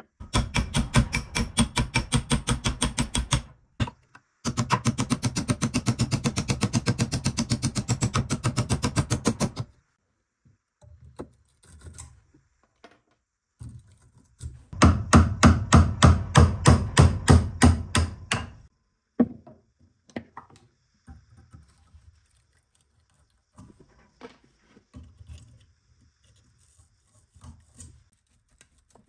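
Rapid, evenly spaced hammer blows, about five or six a second, in three runs of a few seconds each, with scattered quieter knocks between: an old rusty hammer head being knocked loose from its split wooden handle.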